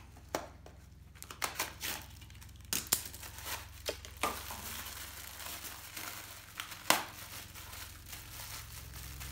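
A small taped cardboard box and its paper wrapping being cut and torn open by hand: crinkling and tearing, with a few sharp clicks and snaps.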